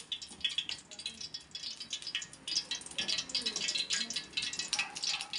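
Sesame oil heating in a kadai, crackling with many small irregular pops as it comes up to temperature for tempering.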